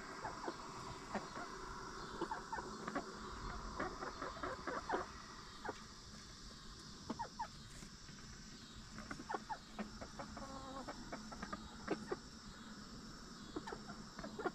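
Backyard hens clucking softly: short, scattered clucks, a few at a time, over a steady high insect chirring.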